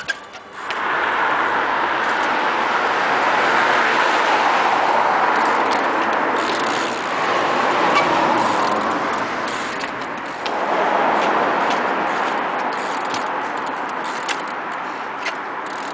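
Bicycle ridden over rough ground: a steady rushing noise of tyres and wind with scattered sharp clicks and knocks, easing briefly about ten seconds in.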